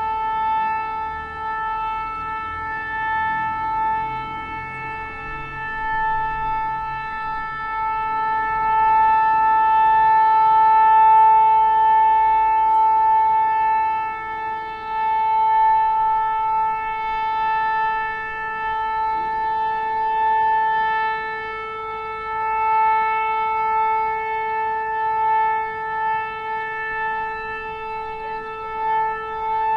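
Nuclear alarm siren holding one steady pitch with a buzzy, many-toned edge, not rising or falling, its loudness swelling and dipping a little.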